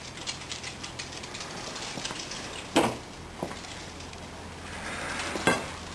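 Handling noise with faint rapid ticking, then two sharp knocks, one a little under three seconds in and one near the end, over a steady low hum.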